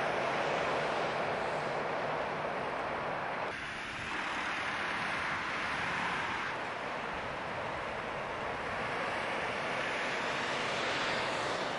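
Steady outdoor road traffic noise, changing abruptly about three and a half seconds in, then a train crossing a steel truss rail bridge near the end.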